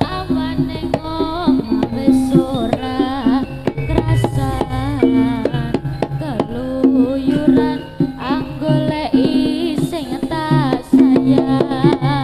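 Live Javanese jaranan music: hand drums beating under a held low note and a gliding, wavering melody line.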